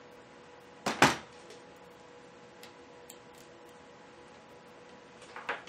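Hands handling a laptop and tools on a workbench: two sharp knocks about a second in, a few faint ticks, then more clicks near the end, over a faint steady electronic whine.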